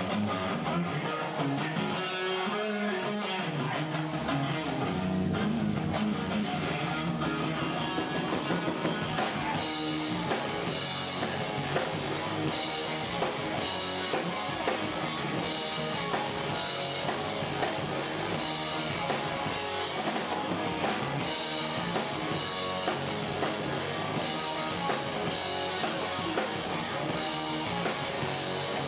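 Live rock band playing an instrumental passage: electric guitars over a drum kit, the sound growing fuller with more cymbal about ten seconds in.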